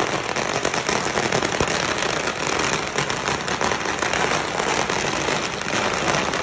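String of firecrackers going off in a dense, continuous crackle.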